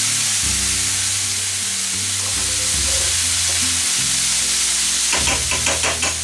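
Bacon, chorizo and vegetables sizzling as they stir-fry in olive oil in a hot pan. Near the end there is a quick run of about seven short stirring strokes in the pan.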